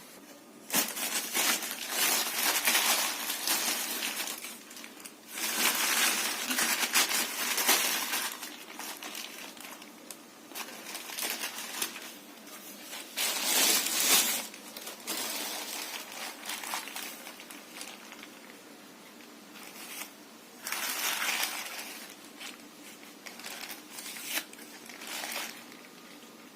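Packaging being handled while a fan is unboxed: crinkling and rustling in repeated bursts of a second or more, with quieter handling between them.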